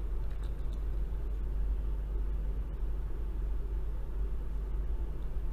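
Steady low hum and rumble of background noise, with a few faint clicks as a small die-cast metal toy loader is turned over in the hands.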